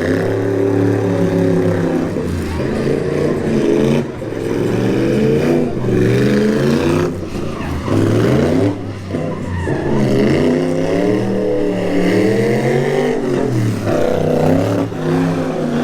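Car engine being revved over and over, its pitch rising and falling in waves. There are short dips in loudness about four and nine seconds in.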